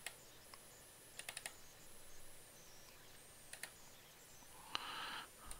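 Faint, scattered clicks of a computer mouse and keys against near-silent room tone. There is a click at the start, a quick run of three clicks about a second in, and another at about three and a half seconds, then a short soft hiss near the end.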